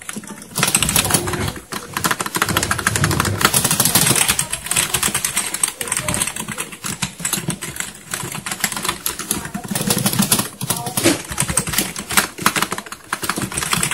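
Fast, continuous typing on a Spartan GK-002 semi-mechanical ('mechanical feel') membrane gaming keyboard with floating keycaps: a dense clatter of keystrokes with a few brief pauses.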